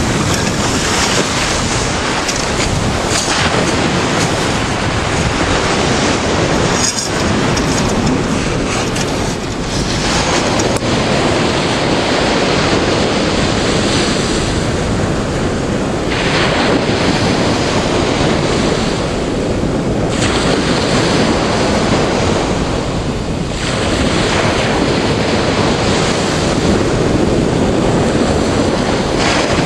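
Sea surf breaking and washing in, loud and continuous, swelling and easing every few seconds as the waves come and go.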